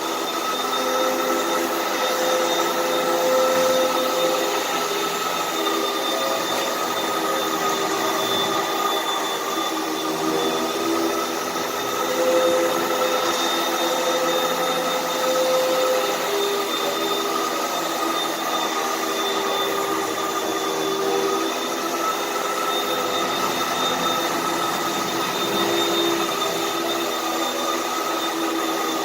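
Vacuum cleaner running steadily: a continuous motor whine over rushing air, its lower tones wavering a little in pitch.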